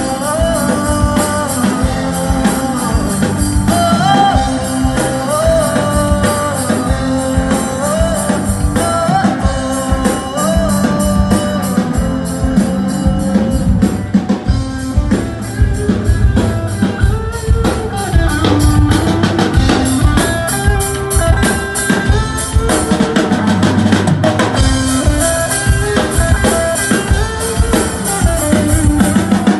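Band music with a drum kit and guitar, a melody line carried over a steady beat, with a rock feel.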